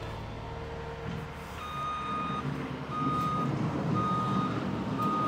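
Reversing alarm of an earth-moving machine grading the yard, beeping about once a second from about a second and a half in, over the low noise of the machine's engine.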